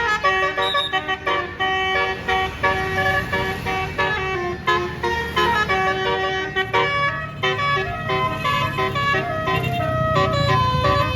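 A tour bus's roof-mounted Basuri multi-trumpet horn playing a fast telolet melody, note after note in quick succession, over the low rumble of the bus engine, which grows louder in the second half.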